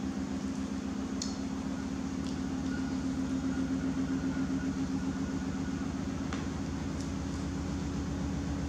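A steady low mechanical hum from a running motor, with a faint high whine for a few seconds in the middle and a few faint clicks.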